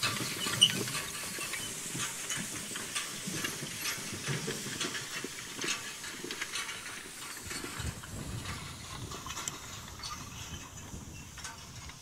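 A horse-drawn hay rake pulled by a team of draft horses through cut hay: many scattered clicks and rattles from the rake over a steady hiss, slowly fading as the team moves away.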